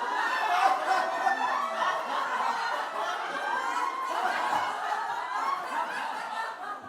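People laughing: continuous chuckling and snickering voices that fade away at the very end.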